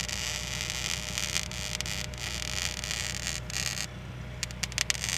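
Electric arc welding: a steady crackling hiss from the arc that stops about four seconds in, followed by a few sharp clicks, over a steady low hum.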